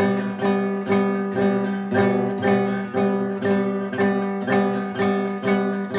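Acoustic guitar strummed in a steady rhythm, the same chord repeated about twice a second.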